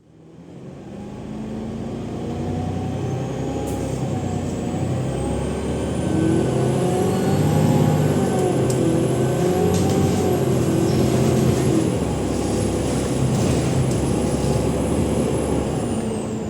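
Alexander Dennis Enviro 500 MMC bus's Cummins ISL 8.9 diesel accelerating hard on kickdown at high revs, with a loud turbo whistle. The whistle rises in pitch a few seconds in, holds high, then drops away near the end.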